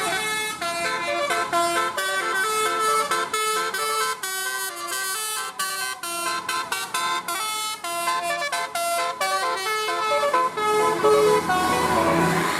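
A tour bus's telolet basuri musical horn playing a quick tune of separate held notes stepping up and down. About ten and a half seconds in the tune stops and vehicle engine and road noise take over.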